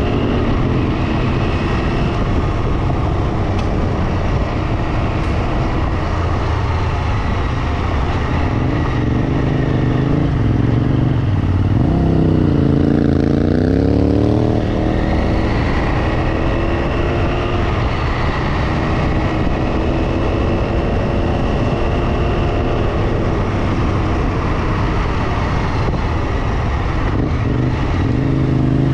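Motorcycle engine running steadily under way, with a constant haze of road and wind noise; about halfway through the engine note drops and then climbs again as the bike slows and picks up speed, and it rises once more near the end.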